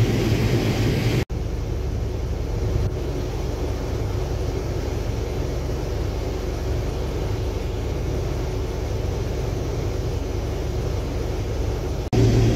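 Steady rumble of a Case IH Axial-Flow combine heard from inside its cab while the unloading auger runs, emptying shelled corn into a semi trailer. The sound cuts abruptly to this about a second in, after a louder stretch of field noise.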